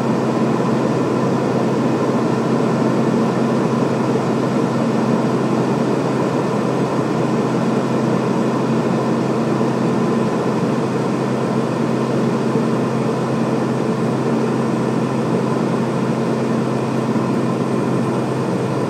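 Steady in-flight drone of a Beechcraft King Air B200's two PT6A-42 turboprop engines and propellers, heard inside the cockpit: an even roar with a low hum and several fainter held higher tones.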